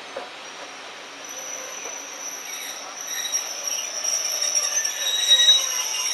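Steel wheels of a steam-hauled passenger train squealing against the rails as it runs slowly into a station. The squeal is high-pitched and steady, over a background of track noise, and grows louder over the last few seconds.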